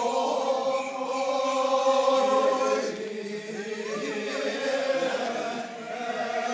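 Several voices chanting together in long, steady held tones, like a choir.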